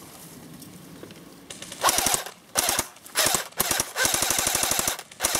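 Airsoft rifle firing rapid full-auto bursts: several short bursts starting about two seconds in, with one longer burst of nearly a second near the end.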